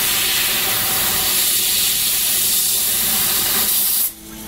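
Dragon DLM-1390 CO2 laser cutter cutting sheet metal, with a loud steady hiss of assist gas jetting from the cutting head's nozzle. About four seconds in, the hiss cuts off suddenly as the cut stops between shapes, leaving a faint low hum.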